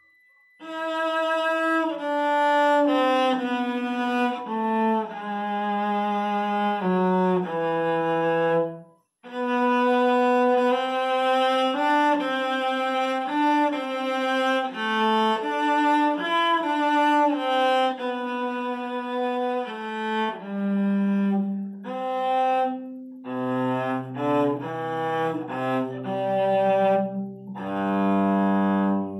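Solo cello played with a bow: a melody of short moving notes in phrases, breaking off briefly about nine seconds in. Near the end a low note is held under the moving melody.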